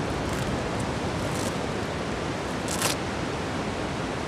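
Steady rush of ocean surf and wind noise on an open beach, with a brief rustle about three seconds in.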